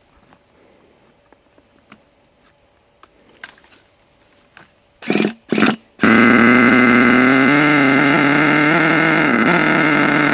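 HPI Savage 25 RC truck's nitro engine being started with a hand-held starter: faint clicks of handling, then two short bursts of cranking about five seconds in. The engine catches and runs loud and steady through a newly fitted exhaust, with a brief dip in pitch near the end.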